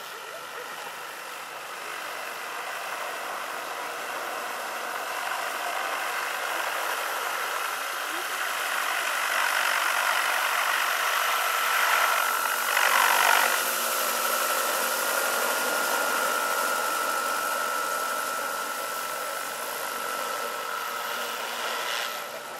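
Large electric scale model helicopter (XXXL Hughes 500, 2.65 m rotor) in flight: a steady high motor whine with rotor noise. It grows louder as the helicopter comes close about twelve seconds in, then fades as it climbs away.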